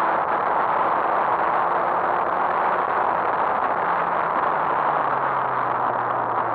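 Motorcycle ride: wind rushing over the camera microphone, with the bike's engine faint underneath and falling slowly in pitch over the last few seconds as it slows.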